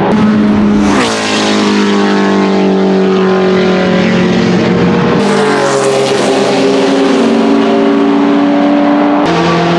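Porsche 908/03's 3.0-litre flat-eight racing engine running at high revs, loud. Its pitch drops sharply about a second in, then holds steady, with abrupt changes in pitch a little after five seconds and again near the end.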